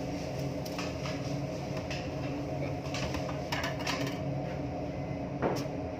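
A steady mechanical hum at several fixed pitches, with a few light clicks and rustles as chocolate shards are handled on a metal baking tray.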